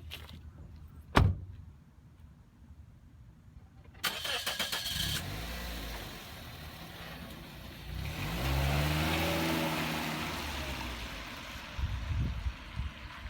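A sharp knock, then a car's engine is cranked and starts, runs, and revs up and back down before settling.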